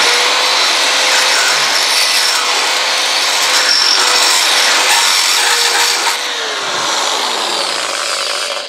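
Corded electric drill with an 8mm high-speed steel bit running at a steady whine while it cuts into a narrowboat's steel deck to widen an existing hole; slow, hard going. About six seconds in, the motor's pitch falls away as it slows, and it stops near the end.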